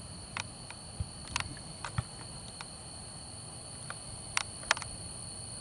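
A steady, high-pitched chorus of evening insects trilling without a break, with a few sharp clicks, about six in all, from the recording device being handled.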